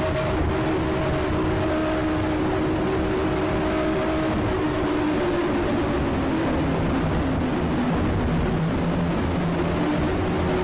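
EAS-style emergency alarm: a loud, steady noisy rumble with several low tones held underneath, which shift about halfway through and slide slowly lower.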